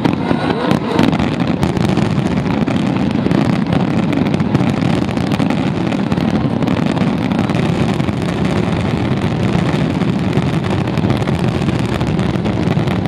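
A dense, continuous barrage of fireworks shells bursting, the booms merging into a steady rolling rumble with crackling on top.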